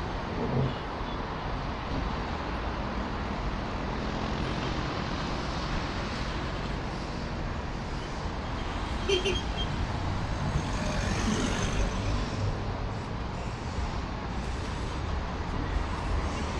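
Road traffic on a busy city avenue: a steady wash of passing cars and other vehicles, with one passing louder a little after the middle.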